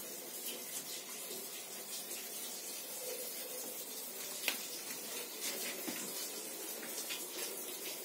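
Steady hiss with a few light clicks and a single sharper click about four and a half seconds in.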